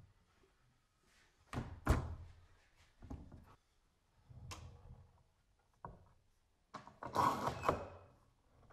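Parallel-jaw bar clamps being handled and set on a glued-up walnut board: a series of separate clunks and knocks, the loudest about two seconds in, then a longer clattering stretch near the end.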